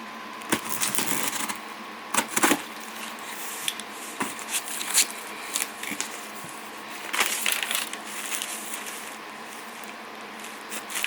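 Crinkling and rustling of packaging being handled, in irregular bursts over a steady background hum.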